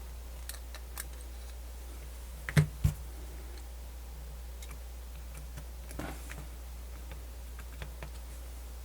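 Scattered light clicks and taps from handling the small parts of a MiniDisc Walkman and tools during reassembly, with two sharper knocks about two and a half seconds in and a few more taps near six seconds. A steady low hum runs underneath.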